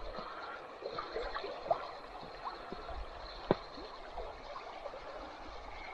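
River water trickling and gurgling, with small plops and two sharp clicks, the louder one about three and a half seconds in.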